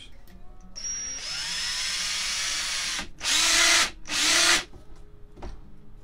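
DeWalt 18V cordless drill running: its motor whine rises as it spins up about a second in, then two short, louder bursts of drilling with a slightly bigger bit.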